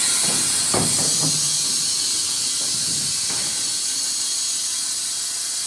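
Wood-Mizer industrial band sawmill running, a steady high hiss, with a knock about a second in.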